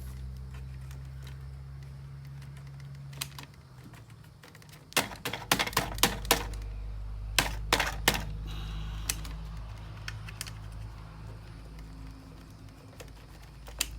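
Quick runs of clicks and rattles from wiring connectors and the starter relay being handled in a diesel generator's control panel, in two clusters about five and seven and a half seconds in, over a steady low hum. The relay has stopped clicking when the key is turned, which the owner takes as a sign that the relay has failed inside.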